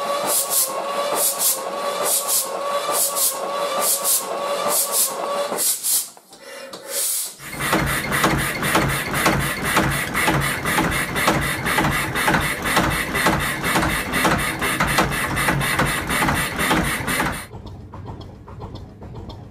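Kelvin K2 twin-cylinder marine diesel engines running. First there is steady running with an even clatter and a steady whine. After a brief drop about six seconds in, there is a louder, rapid, even knocking over a deep rumble. It turns quieter near the end.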